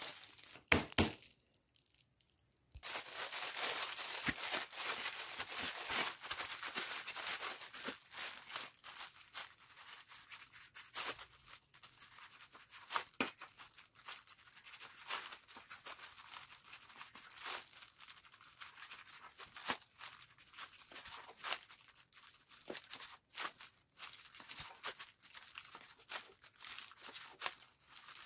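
Plastic bag and disposable plastic gloves crinkling as dough is handled, then a long run of irregular knife taps on a plastic cutting board as a log of dough is sliced into pieces.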